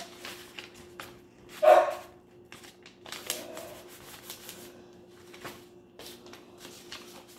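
Paper rustling and light handling taps as a paper cutout is pressed onto a paper plate and a glue stick is picked up, over a faint steady hum. About a second and a half in, one short, loud sound stands out above the handling.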